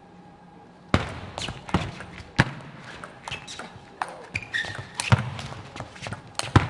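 Table tennis rally: the ball clicks sharply off paddles and the table in a fast back-and-forth, starting about a second in. A few short squeaks of shoes on the court floor are heard midway.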